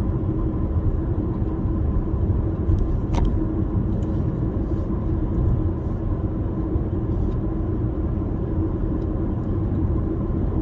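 Steady road and engine rumble of a car driving at speed, heard from inside the cabin, with a brief click about three seconds in.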